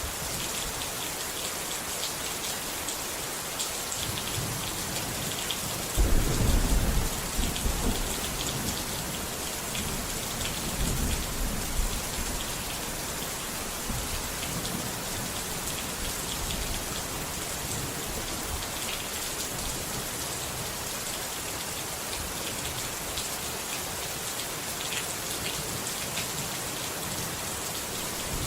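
Steady rain falling, with a roll of thunder that breaks in suddenly about six seconds in and rumbles off over the next several seconds.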